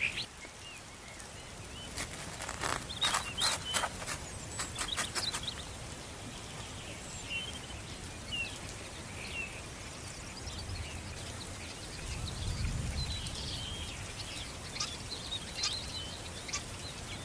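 Small birds chirping in short scattered calls over outdoor background noise, with a quick series of about a dozen sharp clicks or knocks a couple of seconds in and a brief low rumble later on.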